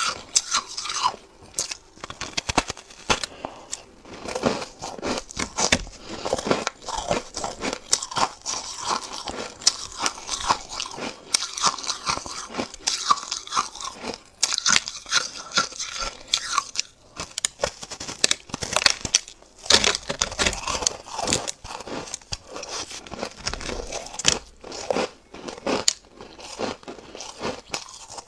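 Close-up crunching of a person biting and chewing soft, snowy-textured frozen ice: a dense, irregular run of crisp crunches and crackles.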